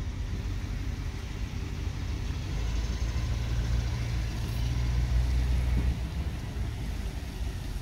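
Chevy 3500 pickup's engine running at low speed as the truck creeps forward, heard from inside the cab as a steady low hum that grows a little louder for a few seconds in the middle.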